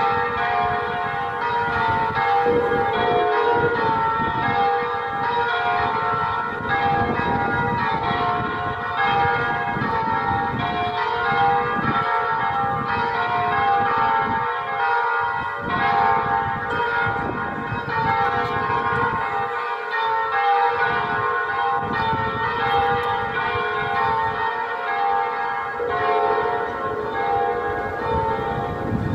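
Electronic simulation of a four-bell "distesa" full peal in G♭3 (G♭, A♭, B♭, B), played through a Fratucello mushroom loudspeaker. The bells strike continuously in overlapping rounds, ringing the call to festive mass.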